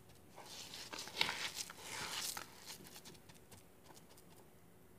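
Hands rubbing and mixing damp coarse semolina in a bowl: soft, irregular gritty rustling that fades out after about three seconds.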